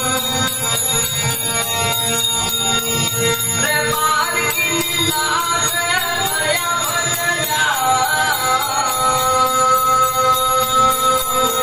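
Male voice singing a Kutchi devotional bhajan over the steady drone of a strummed tambura. A sung melodic phrase with sliding pitch comes in a few seconds in and falls away after about four seconds, leaving the tambura drone.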